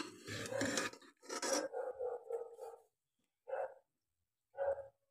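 A metal serving spoon scraping and scooping food out of a steel pot in the first second or so. A dog barks repeatedly throughout, first several quick barks, then single barks about a second apart.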